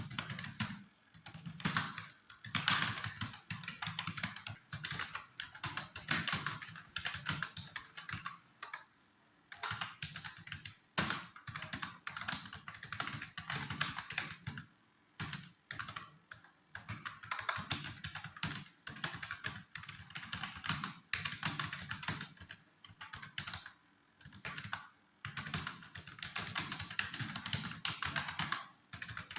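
Continuous typing on a computer keyboard, rapid key clicks in bursts broken by short pauses of a second or so.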